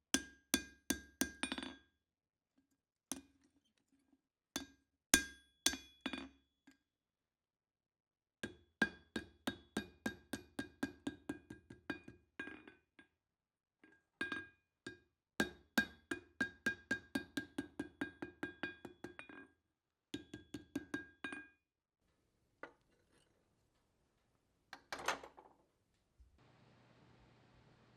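Blacksmith's hammer striking steel on an anvil in quick runs of blows, about three to four a second, with short pauses between runs; each blow rings.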